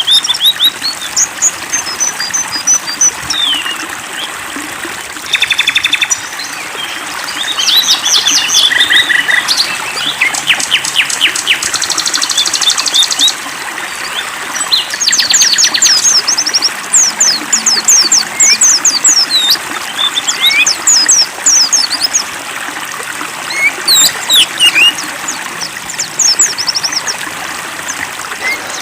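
Songbirds chirping and singing, with fast buzzy trills and quick falling whistle notes, over the steady trickle of running water.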